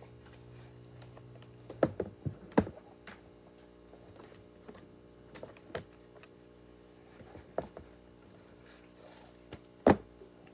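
Irregular light clicks and knocks from a cardboard pop-up book being handled, its pages opened and shut, with a cluster of sharper taps about two seconds in and one more near the end.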